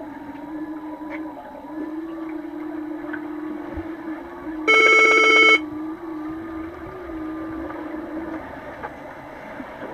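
Underwater pool ambience with a steady, slightly wavering hum. Just under five seconds in, a loud buzzing horn sounds once for about a second, like the underwater signal horn used to stop or restart play in underwater rugby.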